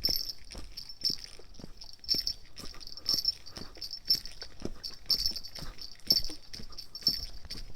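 Japanese level crossing warning bell ringing over and over in a high, pulsing rhythm, with short knocks scattered among the rings.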